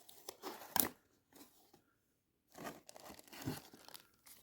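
A cardboard box and its packaging being opened by hand: short bursts of tearing and crinkling, a quiet pause of over a second, then more rustling.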